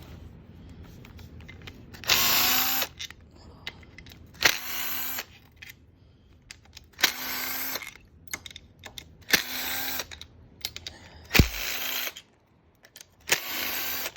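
Handheld power drill running in six short bursts of under a second each, roughly every two seconds, with quiet gaps between.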